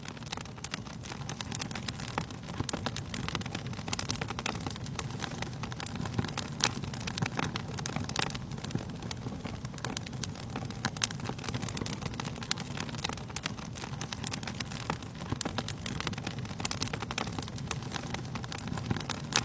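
Wood fire crackling in a fireplace, with irregular sharp pops and snaps over a steady low rush of the flames.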